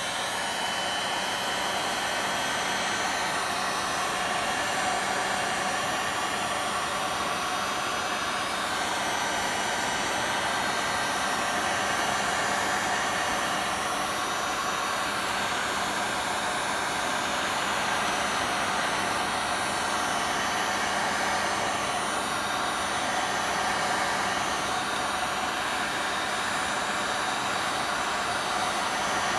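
Handheld heat gun (hot-air blower) running steadily, a loud even hiss of blown air with a faint low hum from its fan motor. It is heating the display's connector pins to reflow them in place of soldering.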